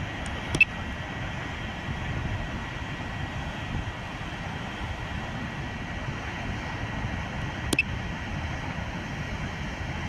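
Steady rushing outdoor noise with a faint high steady tone in it, broken by short sharp clicks about half a second in and again near the end.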